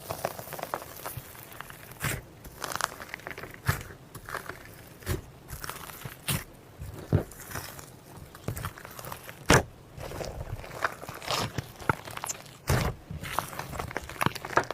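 Slime being squeezed and poked by hand: irregular sticky clicks, pops and crackles, a few each second, with a couple of louder pops.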